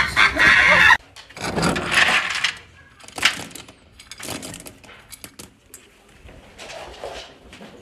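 A voice that breaks off suddenly about a second in, then dry pet-food kibble rattling and clinking as a small plastic cup scoops it from a bin.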